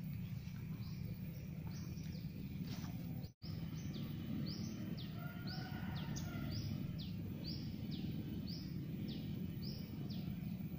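A bird calling over and over in short, high notes that fall in pitch, about two a second, over a steady low rumble of outdoor background noise. The sound drops out for an instant about a third of the way in.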